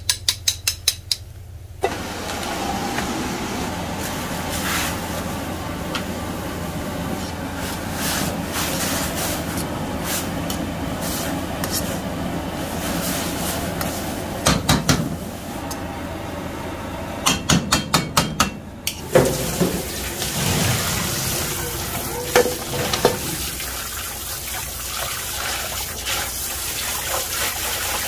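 Frogs deep-frying in hot oil: a steady sizzle with scattered pops, which the cooks take for the frogs' eggs bursting in the oil. A run of rapid clicking comes at the start, the sizzle sets in suddenly about two seconds in, and another run of rapid clicking comes a little past the middle.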